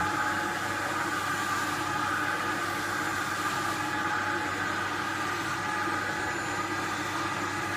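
Vacuum cleaner running steadily with a constant whine, used as a grooming brush on a cat's fur.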